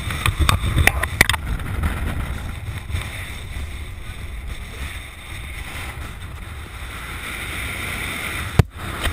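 Wind buffeting an outdoor microphone with a steady low rumble. A quick run of sharp knocks and rustles in the first second or so, and a single sharp click near the end.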